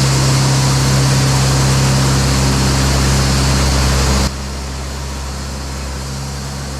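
Echo 45HD2 heavy-duty band sawmill cutting through a log: a loud, steady cutting noise over a low hum that stops abruptly about four seconds in as the cut ends, leaving the mill running at a lower level.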